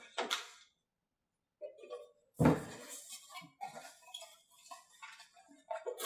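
A cardboard box and a plastic bag being handled on a workbench: a thump about two and a half seconds in, then scattered crinkling, rustling and light taps as the box flaps are folded.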